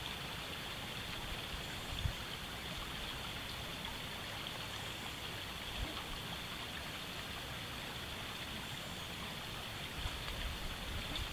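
Steady, even rushing outdoor background noise, with a faint knock about two seconds in and another near the middle.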